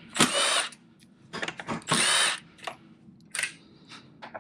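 Cordless power tool spinning fasteners out, most likely the bolts holding a headlight, in several short bursts. The motor whine rises and falls with each burst, and two bursts last about half a second.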